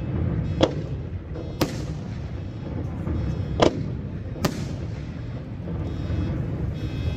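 Aerial firework shells bursting: four sharp bangs with echoing tails, spaced about one to two seconds apart, over a steady low background rumble.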